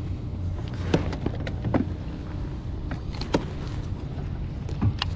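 Electric bow-mounted trolling motor on a kayak humming steadily, with several sharp clicks and knocks from fishing tackle being handled: a baitcasting reel and lure.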